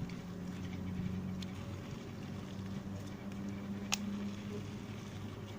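A steady low mechanical hum with one sharp click about four seconds in.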